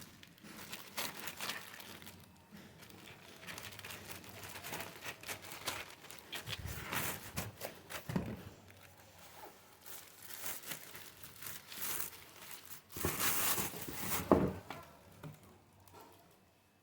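Packaging crinkling and tearing as it is handled, in irregular rustling bursts with the busiest stretch about three-quarters of the way through.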